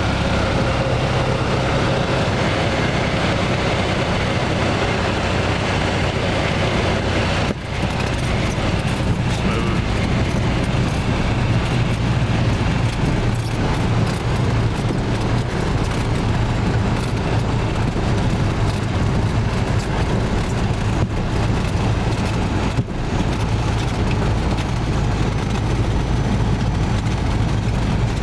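Single-engine light aircraft's piston engine and propeller running steadily, heard from inside the cockpit as a loud drone. It dips briefly twice.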